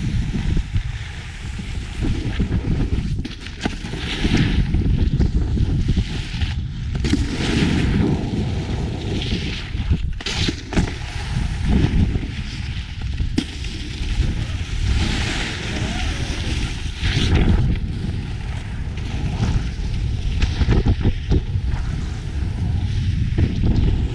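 Wind buffeting the microphone with the hiss and scrape of snowboard edges carving across packed snow, the scraping swelling and fading with each turn.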